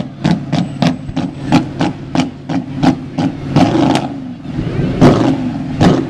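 Custom car's exhaust flamethrower firing: a rapid run of sharp pops from the long exhaust pipes, about three a second, over the engine running, then a short lull and two louder bangs near the end.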